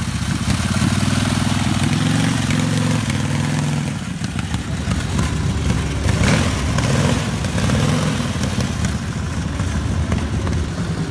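Motorcycle engine idling steadily, then running unevenly as the bike is ridden off about four seconds in.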